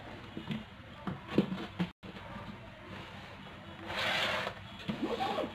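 Hand scooping brined green olives mixed with chopped celery, grated carrot and pepper in a plastic bowl: wet rustling and rubbing, with a louder rustle about four seconds in.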